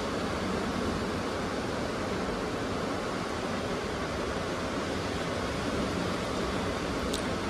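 Steady rush of ocean surf breaking on the beach.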